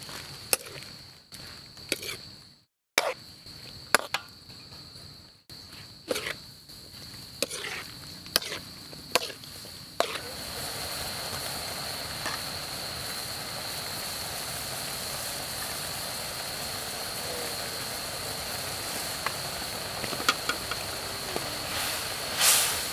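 Metal spatula knocking and clacking against a wok as water lily stems are tossed, in separate sharp strokes. About ten seconds in a steady sizzling and bubbling takes over as the stems cook with meat in liquid, with a loud stir of the spatula near the end.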